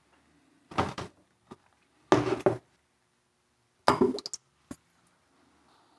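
A few short knocks and splashes as plaster slip-casting molds are handled on a wooden worktable and excess clay slip is dumped out of one into a pitcher.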